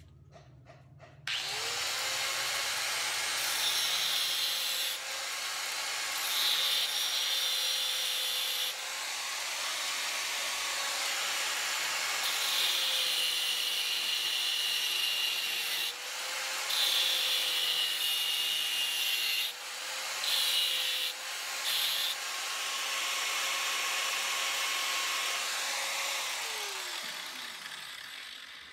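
Electric angle grinder switched on about a second in, its motor whining steadily, as the cutting disc cuts into a metal pipe clamped in a vise. Several stretches of a harsh high screech mark the disc biting into the metal. Near the end the grinder is switched off and its whine falls away as the disc spins down.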